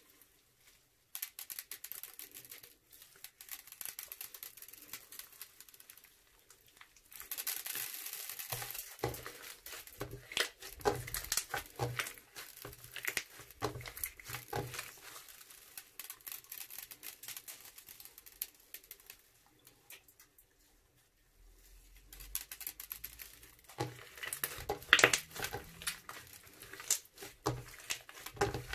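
Crunchy slime with beads being squished and worked by hand, making dense crackling and clicking pops. There are two busier stretches, separated by a short quiet pause about two-thirds of the way through.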